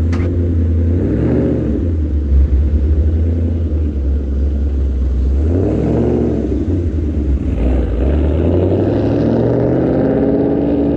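The supercharged 5.2-litre V8 of a 2020 Ford Shelby GT500 running while the car drives slowly, a deep steady rumble whose note swells and falls twice, about halfway through and again near the end.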